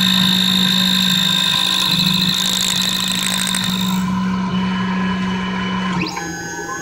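3D Xtreme S key machine's motor and cutter running steadily as it cuts a GM G-code key blank: a steady hum with a high whine that stops about four seconds in. Near the end the sound changes to a rising glide of tones.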